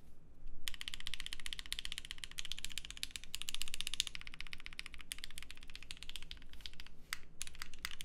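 Fast typing on a custom mechanical keyboard with Gateron CJ linear switches, an aluminum plate and GMK keycaps: a rapid run of keystrokes that begins about a second in, with a short gap near the end. The sound is a little muted by the silicone pad inside the case.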